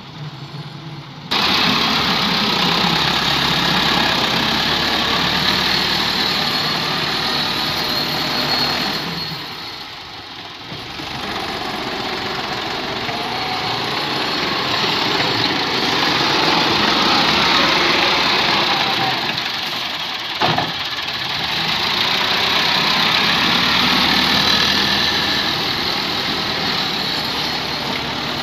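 Massey Ferguson 385 tractor's diesel engine running hard while the tractor pushes sand with a front blade. The noise comes in suddenly about a second in, eases briefly about ten seconds in, and a single sharp knock is heard about twenty seconds in.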